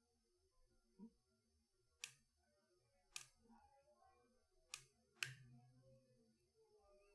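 Four faint, sharp clicks from a pick working the pins inside a CX5 Scorpion high-security lock, with a softer knock shortly before them.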